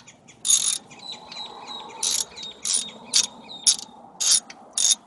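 Hand socket ratchet clicking in about seven short strokes, each a brief rasp of pawl clicks, as it works a front brake caliper bolt.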